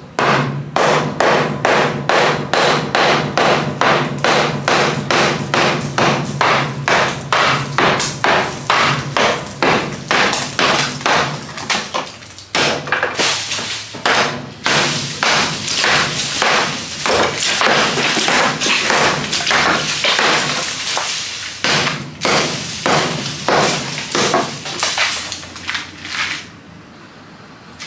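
Claw hammer striking a hollow concrete-block wall, rapid repeated blows about three a second, knocking the wall out around a wooden window frame. The blows stop a second or so before the end.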